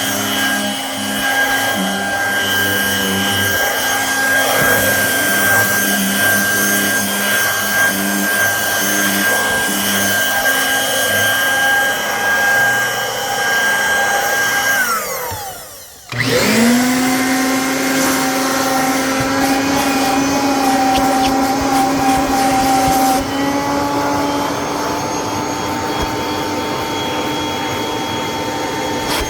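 Vacuum cleaner motor running steadily with a high whine while vacuuming upholstery, switched off about halfway so the whine falls away. A moment later a vacuum motor is switched on, spins up with a rising pitch and runs steadily at a lower pitch.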